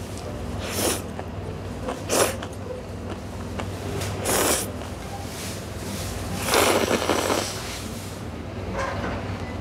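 A person slurping chewy spicy jjolmyeon noodles from a bowl, in four or five noisy slurps, the longest a little past the middle.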